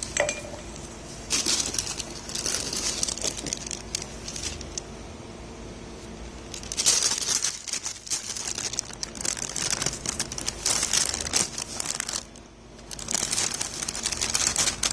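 Kitchen parchment paper crinkling and rustling as it is pulled out and handled, in three bursts of a few seconds each, the loudest about seven seconds in.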